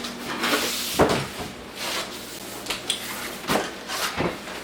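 Knocks and sliding scrapes of a boxed Makita track-saw guide rail being handled. There are several sharp knocks, the loudest about a second in.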